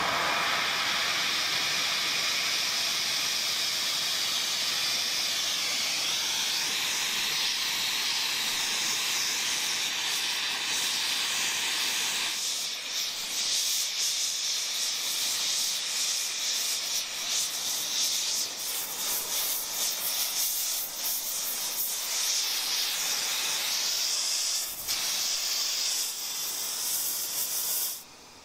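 Hand-held gas torch burning with a loud, steady hiss as it heats a vise-clamped stack of quarters for a mokume gane billet. The hiss stops abruptly near the end.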